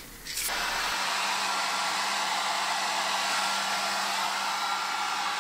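Handheld hair dryer running steadily, blowing warm air over fresh enamel spray paint to flash off the solvent between coats: an even rushing of air with a steady low motor hum under it. It switches on about half a second in and cuts off near the end.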